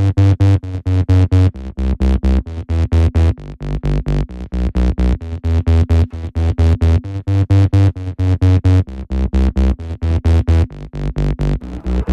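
Electronic dance music with rapid, chopped synthesizer chords and a heavy bass pulse, no vocals.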